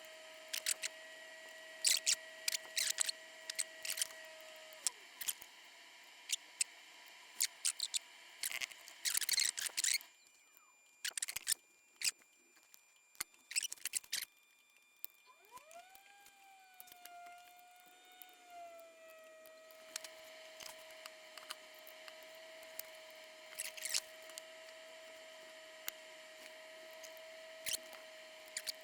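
Small scattered clicks and taps of tweezers and a soldering iron working surface-mount capacitors onto a circuit board. Under them is a steady whine that winds down about five seconds in and rises back up to its steady pitch around fifteen seconds.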